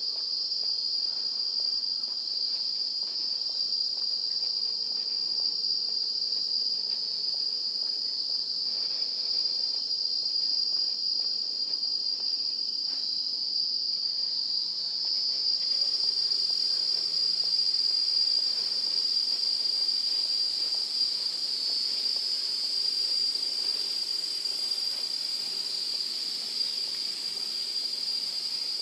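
Steady, high-pitched insect drone throughout. About halfway through, a broader hiss joins it.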